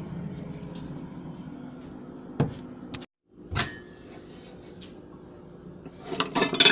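Kitchen knocks and clatter over a steady low hum: two single knocks in the middle, then a quick run of clattering near the end, the loudest part.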